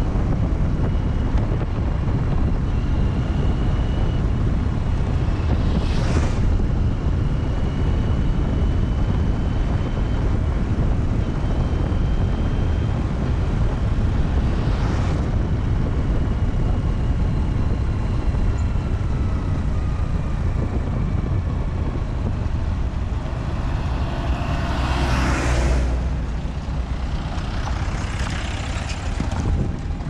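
Wind rushing over the microphone and steady road rumble from a vehicle on the move, with other vehicles passing three times, the last one, near the end, the loudest and longest.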